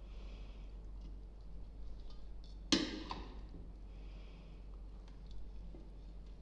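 A serving spoon tossing a chopped pasta salad in a bowl: soft, repeated stirring strokes with small ticks, and one sharp clink of the spoon against the bowl a little under three seconds in.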